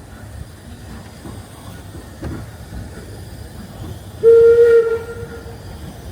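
Steam locomotive's whistle giving one short blast, loud for about a second before fading, about four seconds in, over the steady rumble of the moving train.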